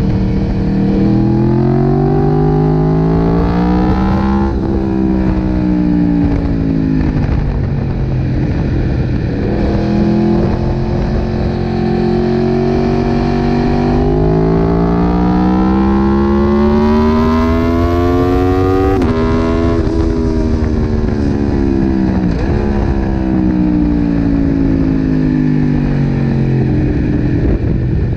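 Race motorcycle engine heard onboard at track speed, its note climbing in pitch through gear changes, then falling away as the bike slows for a corner, twice over, with a short rise near the middle of the second slowdown. Wind rushes over the microphone underneath.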